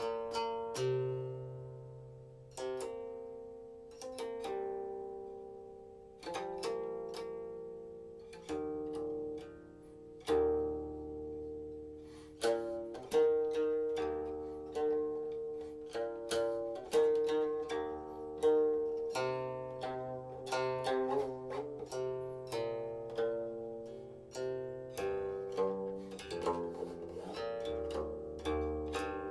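Silk-string guqin played solo: plucked notes that ring and decay, with sparse, slow phrases at first and quicker, denser plucking from about halfway through, some notes sliding in pitch.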